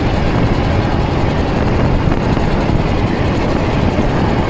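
Steady, loud wind rush buffeting the microphone, with road noise underneath, as an electric bike is ridden at speed.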